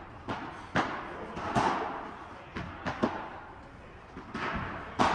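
Padel ball hit by rackets and bouncing during a rally: about seven sharp knocks at irregular intervals, each with a short echo.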